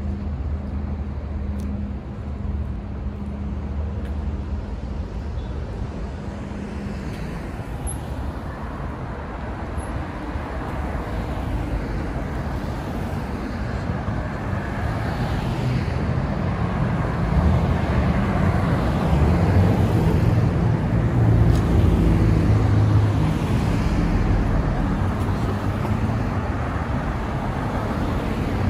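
Road traffic on a multi-lane city avenue: car engines and tyre noise from vehicles driving past, with a steady low engine hum early on. The traffic grows louder in the second half, swelling around two-thirds of the way through.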